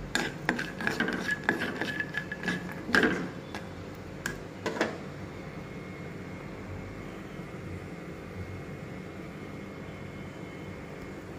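Spatula stirring raw peanuts in a little oil in a nonstick kadhai: a run of clicks and scrapes, the peanuts knocking against the pan, for about the first five seconds, then only a faint steady hiss.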